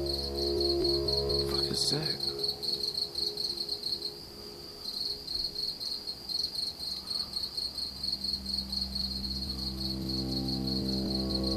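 Crickets chirring steadily and high. Under them is a low, droning groan made of several steady tones; it fades away about two seconds in and swells back up near the end.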